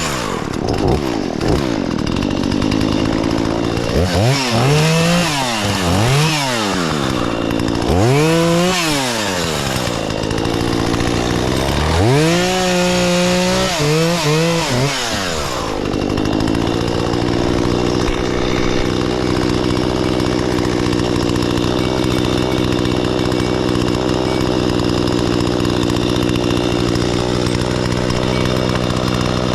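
Chainsaw engine revving up and down several times, then running steadily at an even pitch through the second half.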